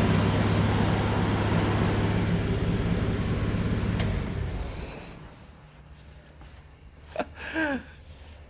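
Hyundai Galloper's six-cylinder LPG engine running steadily just after starting first time, now that a replacement distributor has restored the crank position signal. A sharp click comes about four seconds in, after which the engine sound falls away to a faint hum, and a brief sound with a falling pitch comes near the end.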